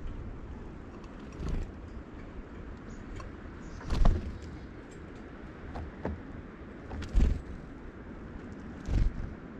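Outdoor ambience at a bird feeder: a steady low rumble with about five sudden thumps or knocks, the loudest about four and about seven seconds in.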